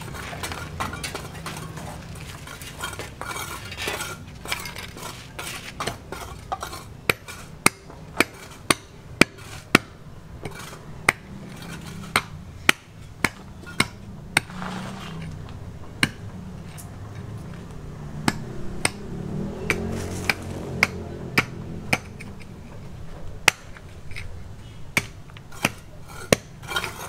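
Sharp hard clinks, like metal striking metal or stone, softer and scattered at first. From about seven seconds in they come in loud runs of about two a second, with short pauses, over a low steady background rumble.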